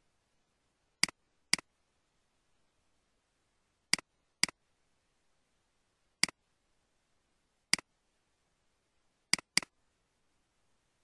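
Sharp computer clicks as folders are opened in Windows Explorer: eight clicks in all, mostly in pairs about half a second apart.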